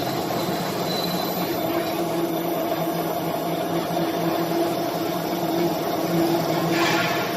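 CNC four-axis boring machine running with a steady hum that holds a few steady tones, with a brief rush of hissing noise near the end.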